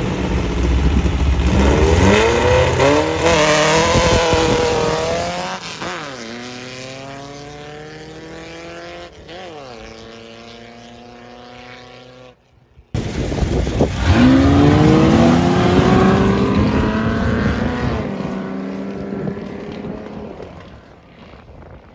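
A dirt drag racing vehicle's engine revving hard as it launches and accelerates, climbing in pitch through the gears, then fading as it moves away. After an abrupt cut, a second run starts loud and climbs in pitch again before fading.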